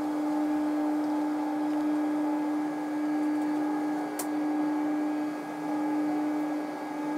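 Electric motors of motorized roller blinds and a projection screen running as they retract, a steady hum. A single short click comes about four seconds in.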